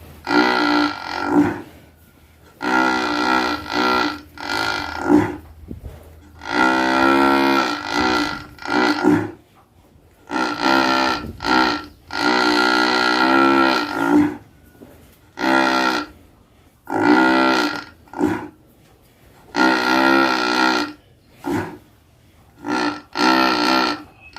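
Large cow snoring in its sleep: a run of about ten drawn-out snores, each a second or two long, with a wavering pitch and short pauses between breaths.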